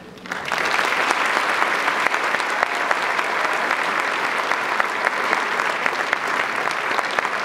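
Audience applause that breaks out about a third of a second in and goes on steadily: a dense patter of many hands clapping.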